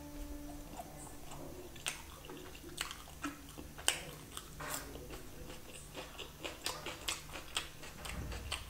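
Close-up chewing of chicken curry eaten by hand, with wet lip smacks and sharp mouth clicks scattered irregularly throughout.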